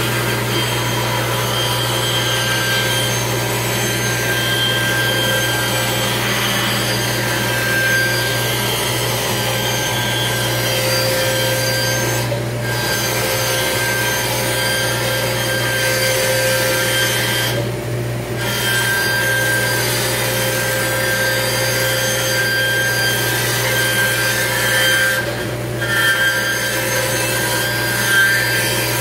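Band saw ripping thin strips from wooden boards, with a dust collection system running steadily underneath as a constant low hum. The cutting sound drops out briefly three times.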